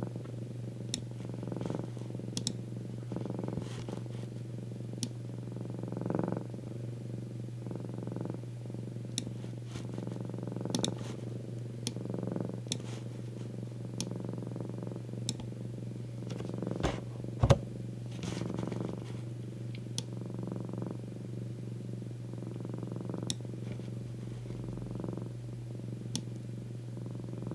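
Domestic cat purring steadily, swelling with each breath every second or two, with scattered faint clicks and one sharp knock about 17 seconds in.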